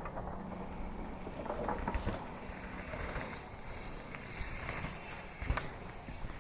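Mountain bike moving over a dirt trail: steady tyre-on-dirt and rattle noise with a high hiss, broken by a few sharp knocks, one about two seconds in and a louder one near five and a half seconds.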